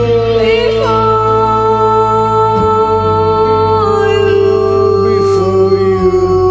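A man and a woman singing a karaoke duet, holding long, slowly falling notes over a backing track with sustained keyboard chords.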